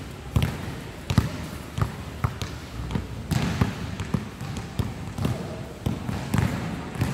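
Basketballs bouncing on a hard court floor: a string of irregular thumps of varying loudness.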